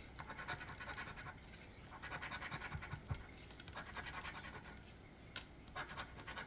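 Scratching the latex coating off a lottery scratch-off ticket: quick repeated scraping strokes in short bouts, with a few sharp ticks near the end.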